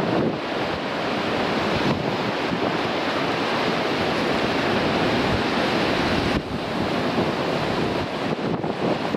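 Sea surf breaking and washing over coastal rocks, with strong wind buffeting the microphone in a steady rush.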